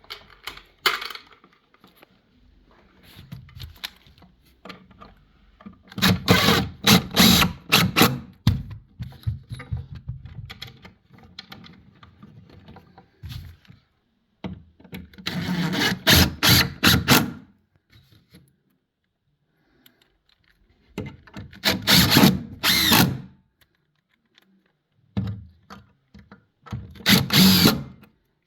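Power drill-driver driving screws to fix the oven door's hinges, in four runs of about two seconds each with quiet gaps between.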